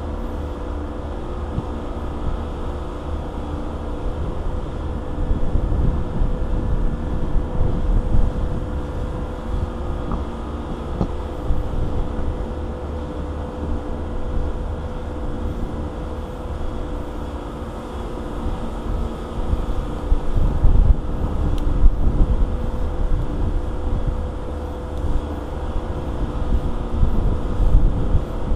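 A steady machine hum with a constant pitch, under gusts of low wind rumble on the microphone.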